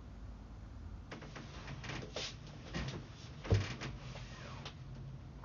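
Rustling and knocks as a person gets up and moves about a small room, with one louder thump about three and a half seconds in.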